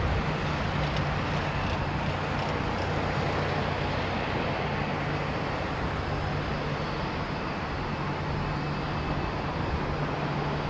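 Jet airliner engine noise on landing approach: a steady rumble that eases off slightly over the first few seconds, with a constant low hum under it.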